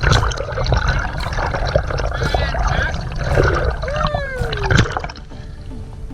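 Choppy waves slapping and splashing around a kayak, with heavy wind rumble on the microphone; it eases off about five seconds in.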